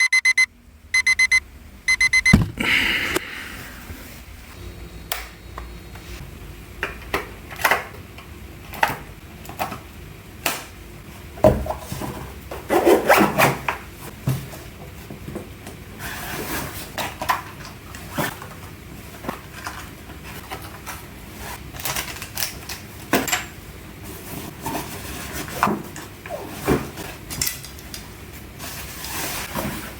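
An electronic beeping in short pulses for about two seconds, then scattered knocks and clicks of things being handled in a small room.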